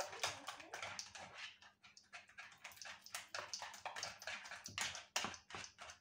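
Wire whisk beating a runny egg, blood sausage and milk mixture in a plastic bowl: quick, irregular clicking and scraping strokes against the bowl, a few per second.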